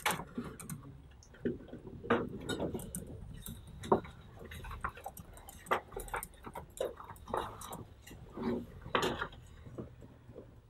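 Irregular sharp clicks and light clatter of small hard objects being handled, about one or two a second.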